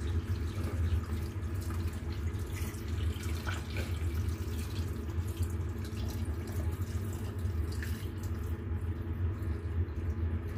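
Just-boiled water pouring in a steady stream from an electric kettle into a cooker pot, with a steady low hum underneath.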